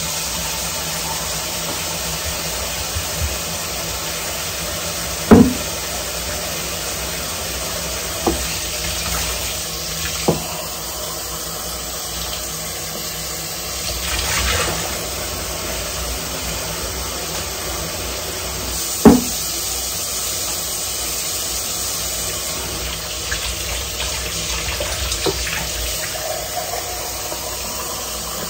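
Kitchen tap running steadily into a sink while dishes are washed by hand, with several sharp knocks and clinks of dishes against each other or the sink, the two loudest about five seconds in and about nineteen seconds in.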